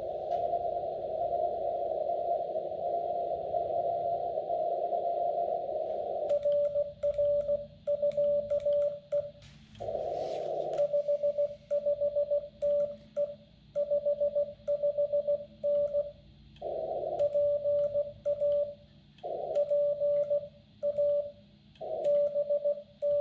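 Xiegu G90 transceiver: first the hiss of band noise through a narrow CW receive filter, then, from about six seconds in, the Morse code sidetone of CW being sent on a paddle key. The sidetone is a steady mid-pitched beep keyed in dots and dashes, broken a few times by short bursts of receiver hiss and faint clicks as the rig switches between transmit and receive.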